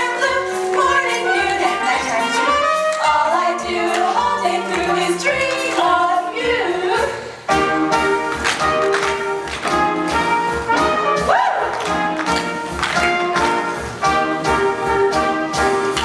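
Upbeat brass-led show-tune band music, with trumpets and trombones carrying a bouncing melody. About seven and a half seconds in it drops off for a moment and comes back in a new section marked by sharp, quick beats.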